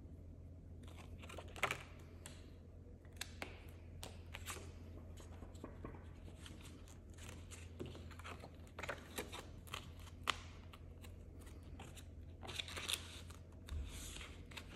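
Polymer banknotes and the clear plastic pockets of a cash binder being handled: soft crinkling and rustling with scattered small clicks and taps, starting about a second in.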